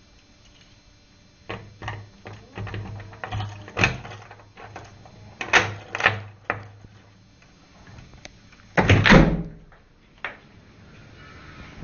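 Two cats fighting: a series of short, loud outbursts, the loudest about nine seconds in, mixed with thumps from the phone being handled.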